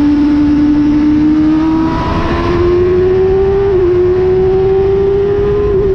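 Onboard sound of a motorcycle engine accelerating hard on track, its note climbing slowly and steadily with two brief wobbles about three and six seconds in, over heavy wind rumble on the microphone.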